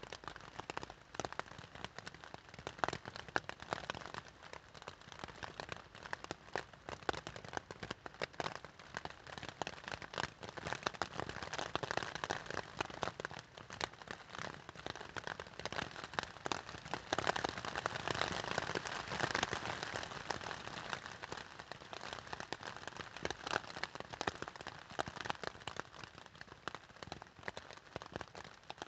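Raindrops hitting a tent's fabric: a dense, irregular stream of taps that grows heavier for a few seconds past the middle.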